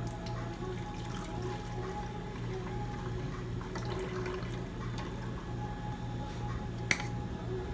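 Milky liquid poured from a pitcher into a plastic blender jug, over steady background music; a sharp knock about seven seconds in.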